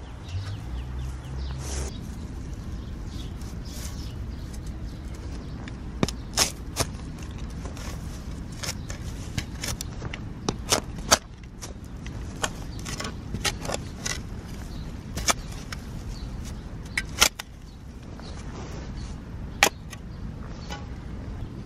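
Steel shovel blade being driven into garden soil, with scattered sharp crunches and snaps as the sharpened edge cuts through dirt and small roots, over a steady low rumble.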